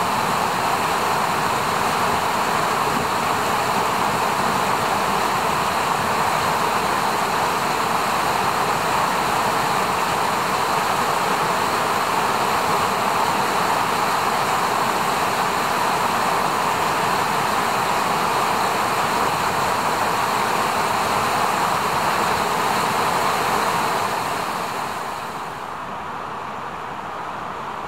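Steady rush of a fast-flowing mountain river. About 25 s in it becomes quieter and lower-pitched.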